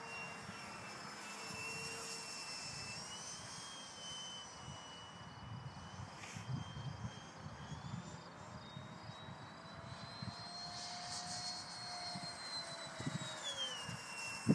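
Radio-controlled model Mirage 2000 jet flying overhead, its motor giving a faint high whine. The pitch climbs in steps through the first half and falls back near the end.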